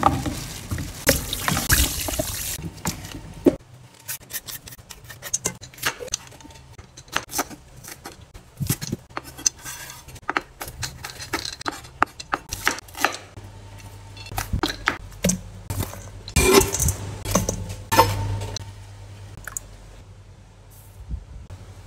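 Kitchen food-preparation sounds. First comes a brief rush of rustling at the sink, then scattered clicks and knocks of a knife on a wooden cutting board and of bowls and utensils being handled.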